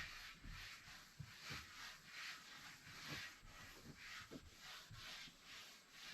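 Faint, repeated rubbing strokes of a cloth wiping a window, about one or two strokes a second.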